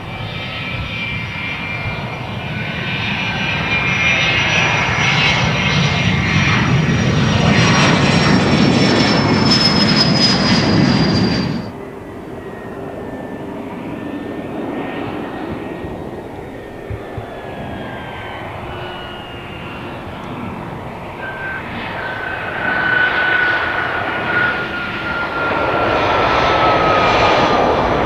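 Business jet at power on the runway, its turbofan whine and roar building to loud over about ten seconds, then cut off abruptly. Then a Cessna Citation business jet coming in to land, its turbofan whine sliding steadily down in pitch as it passes and swelling again near the end.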